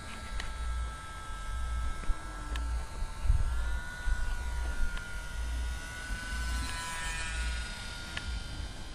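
Small electric motor and propeller of an RC model airplane, whining steadily in flight, its pitch rising slightly about three and a half seconds in. A low rumble of wind on the microphone runs underneath.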